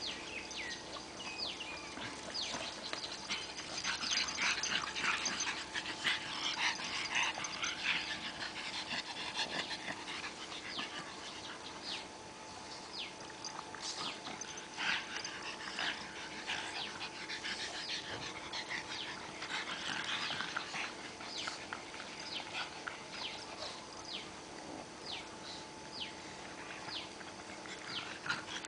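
Pugs making small vocal sounds: many short, high, falling calls, thickest in the first ten seconds and again about halfway through.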